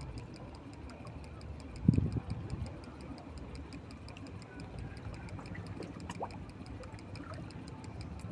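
Faint, even ticking several times a second over a low rumble, with one loud low knock about two seconds in.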